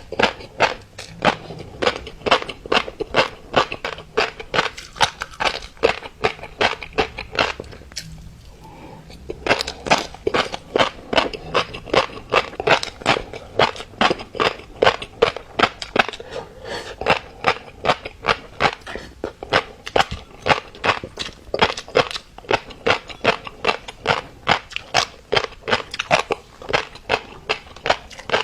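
Mixed-colour fish roe being chewed, the small eggs popping and crackling at about three or four pops a second, with a short pause about eight seconds in.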